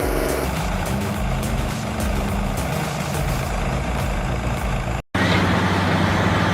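Heavy diesel machinery engine running under load. About five seconds in it cuts off abruptly, and a different steady engine note starts.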